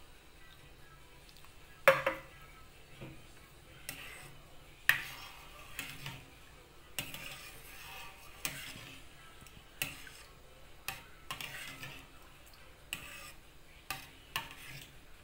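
A metal spoon stirring a thick coconut-milk and sago mixture in an enameled cast-iron pot. It clinks and scrapes against the pot about once a second, and the sharpest knock comes about two seconds in.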